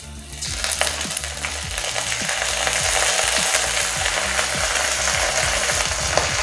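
Fried paneer, onion and green chillies sizzling in a hot steel kadhai as chilli sauce is poured in. The sizzle swells about half a second in and then holds steady.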